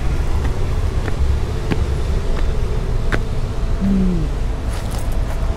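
Footsteps of a person walking on pavement, a click about every 0.7 s, over a steady low rumble.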